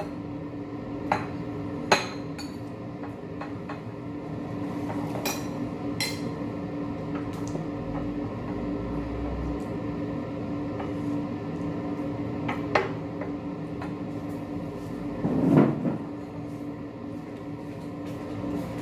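Cutlery and dishes clinking now and then during a meal, a handful of sharp clicks spread out over a steady low hum. A louder dull thud comes about three quarters of the way through.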